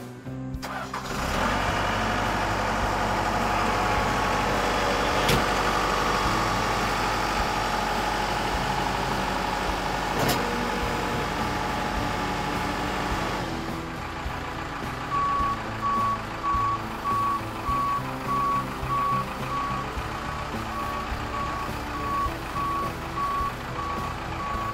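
Case 580 Super L backhoe's four-cylinder diesel engine running loud, coming in sharply about half a second in. About 14 s in it drops lower, and a backup alarm starts a steady series of short beeps at one pitch.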